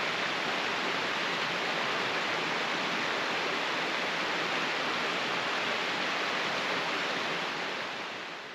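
Small mountain stream splashing down rocky cascades: a steady rush of water that fades out near the end.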